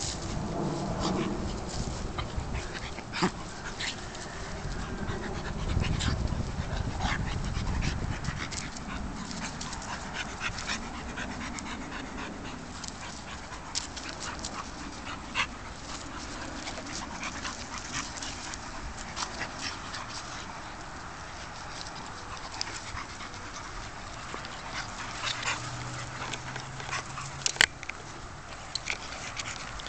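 An American Staffordshire terrier and a pit bull puppy play-fighting: dog noises and scuffling, with scattered short sharp clicks throughout.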